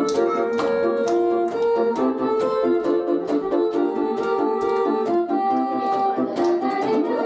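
Hand-cranked book-playing street organ playing a tune from its folded cardboard music book: a melody of held pipe notes over a repeating accompaniment, with a regular beat.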